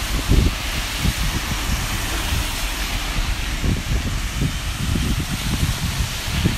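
Steady hiss of falling rain, with irregular low gusts of wind rumbling on the microphone.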